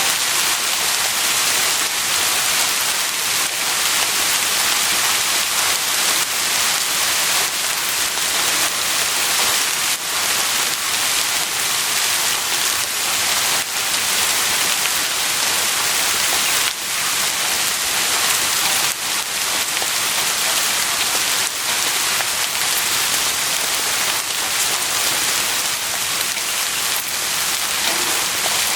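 Heavy rain falling steadily, a dense hiss with scattered drop patter on surfaces.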